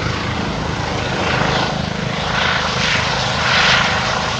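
Propeller aircraft engine droning steadily, with a hiss that swells and fades about once a second.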